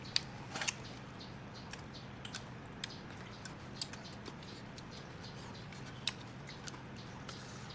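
Close-up eating sounds of someone chewing chicken: scattered small wet clicks and smacks of mouth and teeth, over a faint steady low hum.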